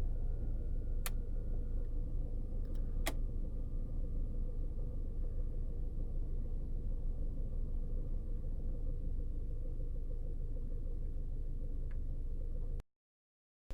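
Car engine idling, heard inside the cabin as a steady low rumble, with two sharp clicks about one and three seconds in. The sound cuts out abruptly near the end.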